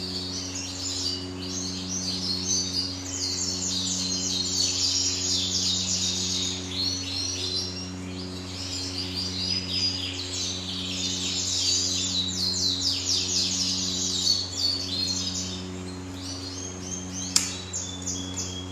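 Many frilled canaries chirping and singing together without a break, over a steady electrical hum with a low tone that pulses about once a second. A single sharp click comes near the end.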